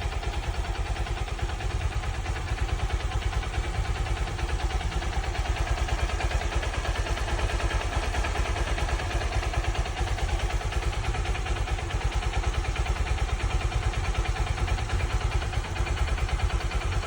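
Suzuki DR150 (Haojue NK150) single-cylinder engine idling steadily with an even, rapid pulse, warmed up and at 10,000 km. The owner calls this a normal sound for the bike.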